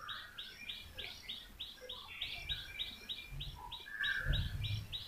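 A bird chirping over and over in a fast, even series of short, high chirps, about four a second, heard faintly. A few faint low bumps come about three to four seconds in.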